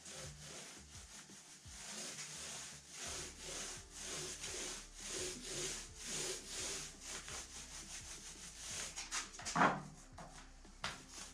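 Small paint roller rolling tinted paint back and forth over a textured decorative-plaster surface, a repeated swishing with each stroke. Near the end a single louder knock as the roller is set down in its plastic tray.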